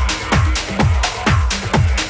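House music from a DJ mix: a steady four-on-the-floor kick drum at about two beats a second, with bright hi-hat strikes between the kicks.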